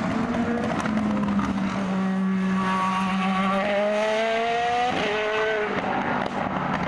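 Zytek 09S LMP1 prototype's 4.5-litre naturally aspirated V8 accelerating hard. Its pitch climbs through the gear, drops sharply at an upshift about five seconds in, then climbs again.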